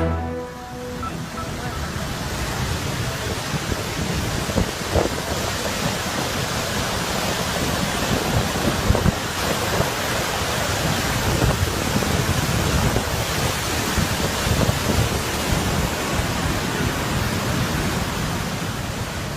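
Waterfall rushing: a steady, even noise of falling water, with an uneven low rumble under it.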